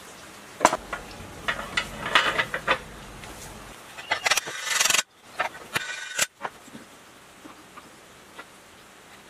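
Metal parts being handled and fitted into a cast-aluminium saw base: a run of sharp clinks and knocks in the first few seconds, then a short scraping rustle, then only soft occasional ticks.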